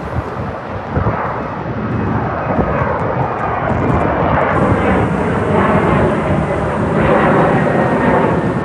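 Jet airliner engines running loud, building steadily over the first few seconds and then holding, with a faint whine over the roar.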